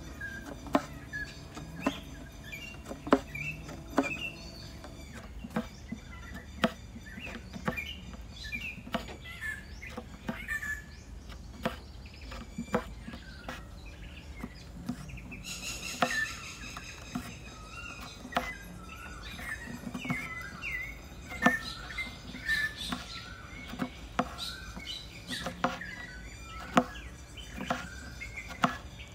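Embroidery needle being pushed and pulled through fabric stretched tight in a wooden hoop: irregular sharp pops as the needle pierces the fabric, about one every half second to second. Short high chirping squeaks come between the pops.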